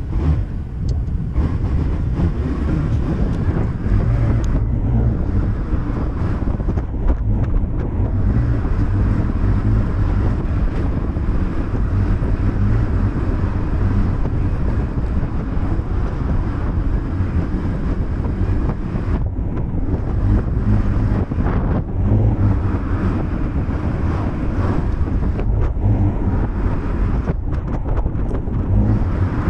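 Wind buffeting the microphone of a moving motor scooter, over the steady running of the Yamaha Cygnus 125's single-cylinder engine.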